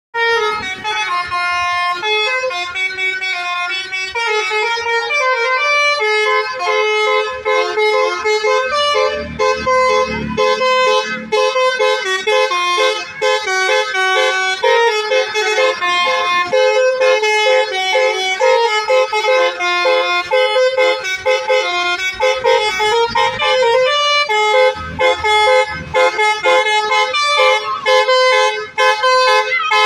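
Basuri musical bus horn playing a melody, its loud, buzzy notes stepping from pitch to pitch without a break.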